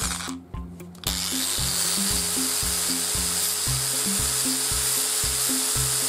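Narrow belt sander running, grinding a chamfer on the edge of a steel bearing nut. It gives a steady, loud sanding hiss with a thin motor tone. The tone starts about a second in and rises slightly as the sander comes up to speed.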